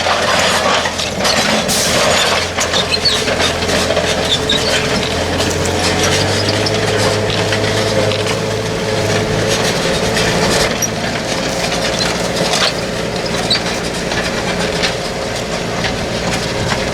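A vehicle engine running with a low drone that steps up in pitch about six seconds in, over continuous rattling and clattering.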